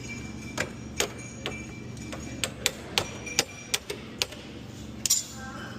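A string of about ten irregular sharp clicks and knocks over a steady low hum, the loudest a quick double click near the end.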